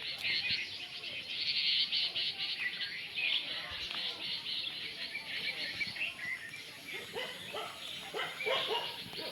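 Many small birds chirping together: a dense chorus of short, high calls, joined by some lower calls near the end.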